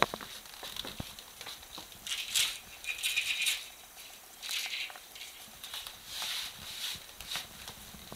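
Pet prairie dogs' claws scrabbling and skittering on a wooden parquet floor: a couple of sharp clicks near the start, then several short scratchy bursts.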